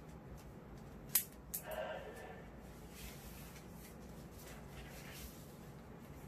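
Handling of a cloth tape measure: a sharp click about a second in, a smaller click just after, then a brief rustle, over faint room tone.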